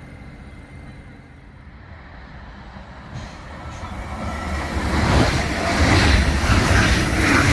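ICE high-speed electric train approaching and running past on the near track. A rushing rail noise builds from about three seconds in and is loud by about five seconds.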